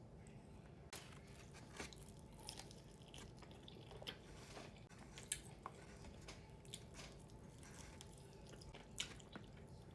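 Faint chewing and biting on hot honey chicken wings, with scattered soft mouth clicks over low room hum.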